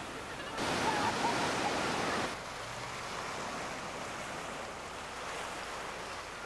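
Ocean surf breaking and washing over shoreline rocks, a steady rushing noise. It is louder for the first two seconds or so, then drops a little and stays even.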